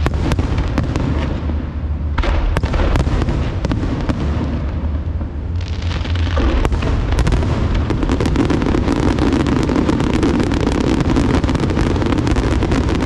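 Aerial fireworks display: continuous booming from the shells, with scattered sharp bangs at first, giving way about halfway through to a dense, unbroken crackling.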